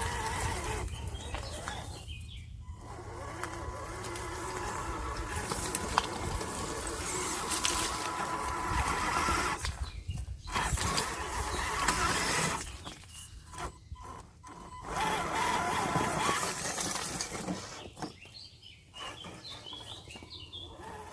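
Radio-controlled rock crawler's electric motor and gearbox whining in short throttle bursts as it climbs over stone, cutting out in brief pauses several times.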